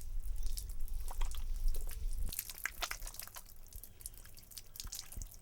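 Scattered small clicks and drips, irregularly spaced, over a low rumble that fades out about two seconds in.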